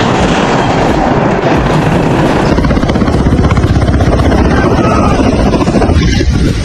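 Attack helicopter with coaxial rotors making a low, fast pass: loud, dense rotor and engine noise with a rapid beating of the blades.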